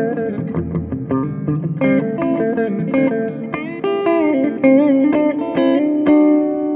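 Epiphone Les Paul Classic Worn electric guitar played through a clean amp tone: a picked single-note lead line with several string bends, settling on one held note near the end.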